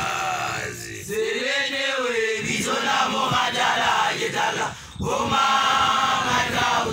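Young Basotho male initiates (makoloane) chanting together, the voices holding long notes, with a brief break about five seconds in.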